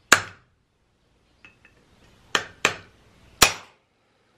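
A hammer striking a chisel held against a clay mold, chipping the mold away from a cast-stone figure: four sharp clinking strikes, one right at the start and three more about two seconds later, with a couple of faint ticks in between.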